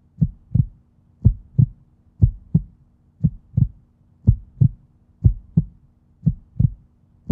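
Heartbeat-like double thump, two low beats close together about once a second, repeating evenly, over a faint steady low hum.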